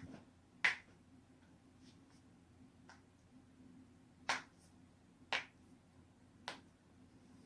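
Human joints being cracked: a series of sharp pops at uneven intervals, the loudest about a second in and three more in the second half.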